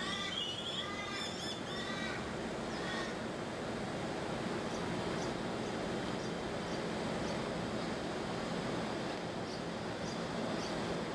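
Steady noise from an air-conditioning unit. Over it, a bird gives a quick series of repeated calls in the first two seconds, and faint short high chirps come about every half second later on.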